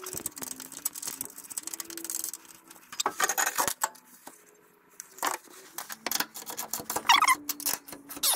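Metal clinking and ticking of nuts, bolts and a combination wrench as bolts are fitted and tightened through a steel gas-tank bracket on a truck frame. The sharp clicks come in clusters, about three seconds in and again in the last two seconds.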